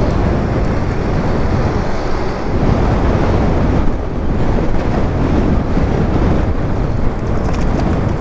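Steady rumbling wind noise on the microphone of a camera mounted on a moving e-bike.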